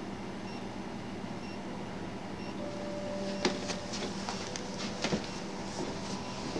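A steady low hum over faint room noise, with a run of sharp clicks and knocks starting about halfway through.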